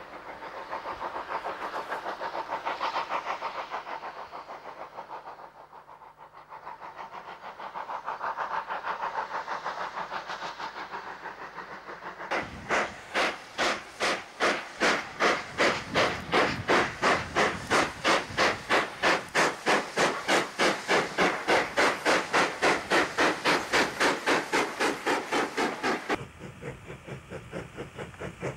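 Steam locomotive exhaust beats from a New South Wales 32 class: at first a softer rhythmic chuffing that swells and fades twice, then after a sudden change about twelve seconds in, loud, sharp, fast and evenly spaced beats, which drop abruptly to a fainter beat near the end.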